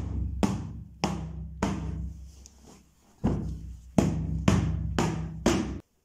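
Background music with a steady drum beat, about two hits a second over a low bass line, cutting off suddenly near the end.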